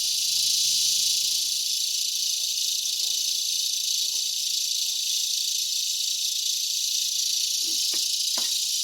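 Cicadas singing in a tree at dusk: a continuous high, hissing buzz that holds steady.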